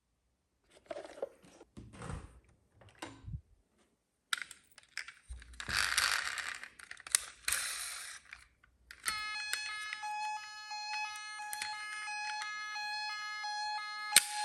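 Scattered knocks and rustles, then a few seconds of rattling, hissing noise, then from about nine seconds in an electronic beeping tune of clean stepped tones from a toy vehicle's sound chip.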